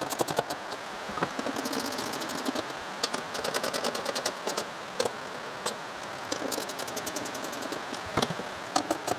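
Hand ratchet wrench clicking in quick runs as bumper mounting bolts are tightened, with a few sharper knocks of tool on metal near the end.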